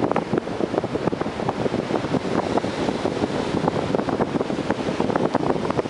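Wind buffeting the camera microphone: a loud, steady, fluttering rush, with ocean surf beneath it.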